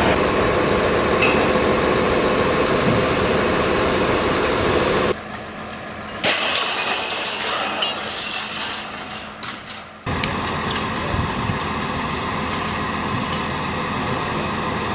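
Work-site audio in several abrupt cuts. A crane's engine runs steadily for about the first five seconds. Then come sharp metallic clinks and knocks, and then a steady machine drone.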